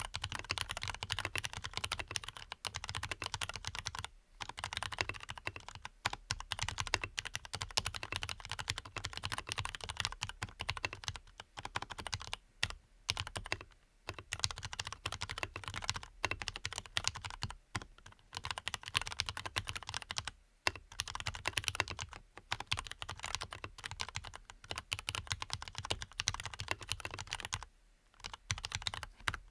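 Fast continuous typing on a Leopold FC660MBT PD mechanical keyboard with lubed Cherry MX Black linear switches and a memory-foam-dampened case, with a few brief pauses. The keystrokes are deep and muted.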